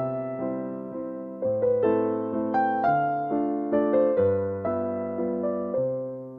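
Background music: a soft piano melody, single notes struck over sustained chords, each decaying before the next.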